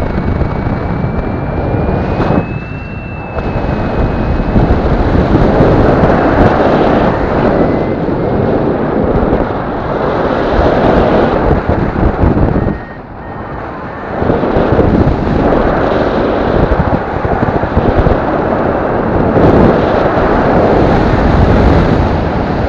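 Airflow buffeting the microphone of a head-mounted camera under a paraglider in flight: a loud, gusty rush that eases briefly twice, about two and a half seconds in and again near thirteen seconds. A faint steady tone, slightly rising, sits under it in the first few seconds.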